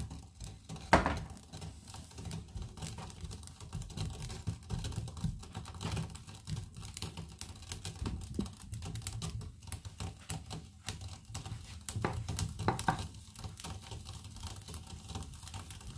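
Chopped red onions frying in oil in a non-stick frying pan, crackling with many small irregular pops, with a wooden spatula stirring them now and then. There is one sharper knock about a second in.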